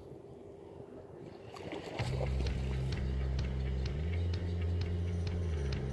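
Faint, near-quiet background for about two seconds, then background music comes in: a deep bass line that holds and shifts between notes, over an even ticking beat about three times a second.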